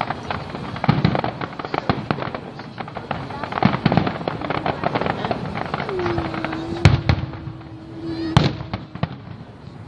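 Aerial fireworks: a dense crackle of many small pops from crackling star bursts, with two loud booms about seven and eight and a half seconds in. A steady low tone sounds for about three seconds in the second half.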